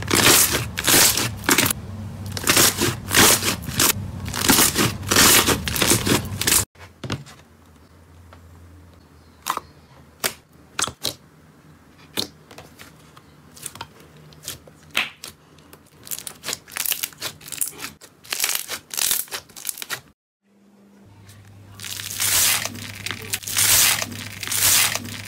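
Hands squeezing and kneading slime, with dense wet crackling and popping. After about seven seconds the pops thin out to scattered ones as a glossy slime is pressed. Near the end comes dense crunching as slime mixed with foam beads is squished.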